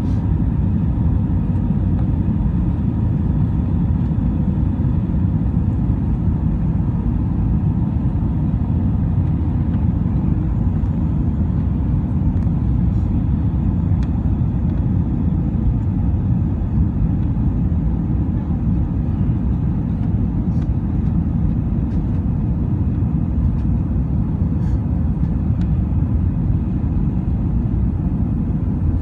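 Steady low rumble of an airliner cabin in flight, engine and airflow noise heard from inside at a window seat, holding at an even level.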